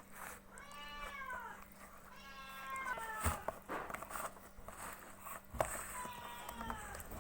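A cat meowing several times, in drawn-out meows that rise and fall in pitch, with a couple of sharp clicks between them.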